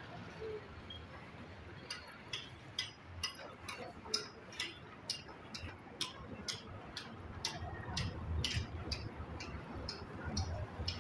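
Footsteps of a person walking at a steady pace on a paved street, about two steps a second.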